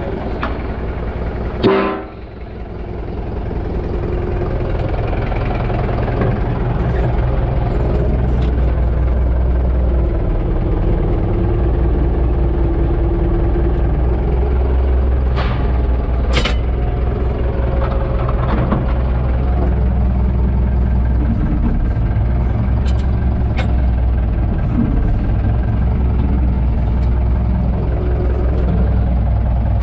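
UTB Universal 650 tractor's diesel engine running steadily, heard from inside the cab. A loud clunk comes about two seconds in, after which the engine sound swells back up and holds steady.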